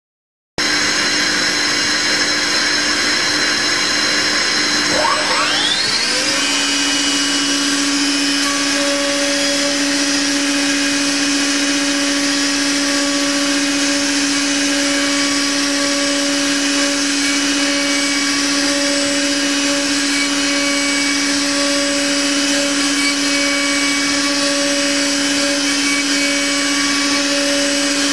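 CNC milling spindle at 17,000 rpm running an 8 mm ball-end mill on a finishing pass through wood: a loud steady machine whine that starts abruptly just after the beginning, with a brief rising sweep in pitch about five seconds in.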